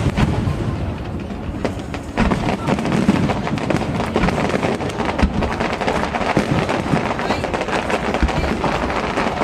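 Fireworks going off in quick succession, many sharp bangs and crackles, over the noise of a chattering crowd. It gets louder about two seconds in.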